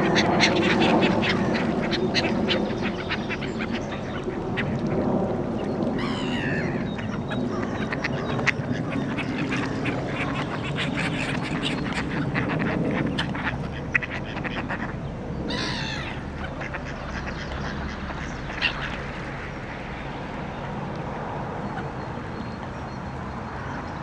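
Mallards quacking, a dense chatter of rapid calls that is busiest in the first half and thins out later. Two short higher calls from gulls cut through, about six and fifteen seconds in.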